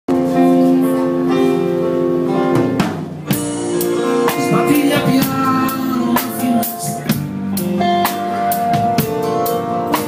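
Live band playing amplified music: a drum kit with cymbal crashes under sustained chords, with a voice singing.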